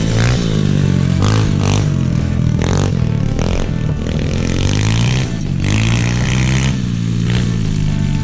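SSR 125 pit bike's single-cylinder four-stroke engine revving up and down as it is ridden around, its pitch rising and falling.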